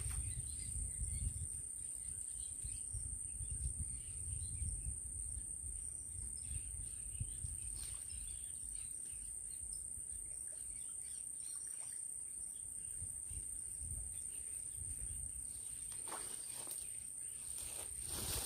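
Insects trilling in one steady, continuous high tone, with a low rumble at the start and brief rustling near the end.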